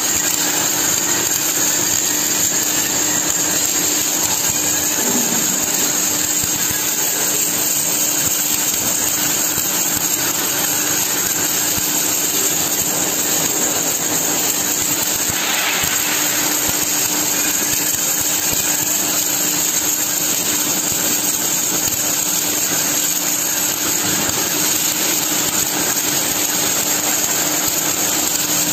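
Wire-fed welding arc from an automatic welding carriage laying a fillet weld along a steel box girder: a steady crackling sizzle with a steady low hum underneath.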